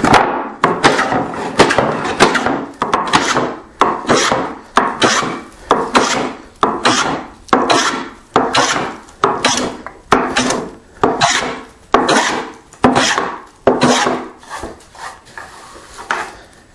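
Fore plane with a heavily cambered iron taking quick, repeated rasping strokes across the grain of a rough-sawn board, about one and a half strokes a second. The strokes grow fainter near the end and then stop.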